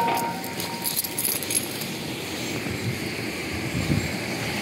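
Steady rumble of distant traffic, with footsteps and rustling in dry grass and leaves. A faint ringing tone fades out within the first second.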